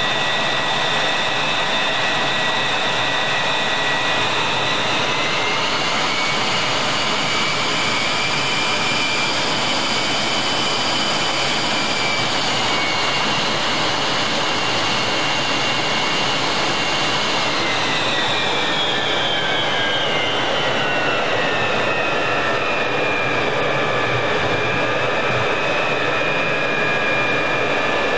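Mirage III jet fighter's Atar 09C turbojet running, heard from inside the cockpit while taxiing: a steady roar with a high whine that rises about five seconds in and slides gradually back down from about eighteen seconds in.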